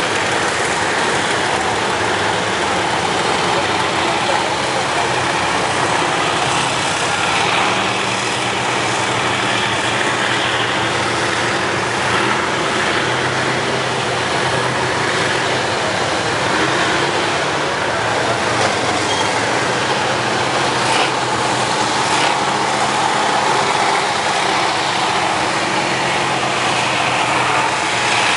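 Main battle tanks driving past at close range, their diesel engines running and their steel tracks clanking, in a loud, steady mechanical din.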